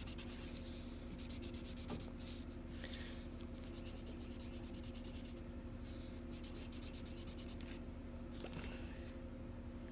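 Marker scribbling on paper as a picture is coloured in, in several spells of quick back-and-forth strokes with short pauses between them. A steady low hum runs underneath.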